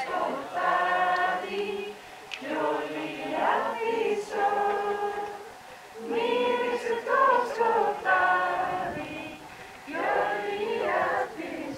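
Youth choir of mixed boys' and girls' voices singing unaccompanied, in held phrases a few seconds long with short breaks between them.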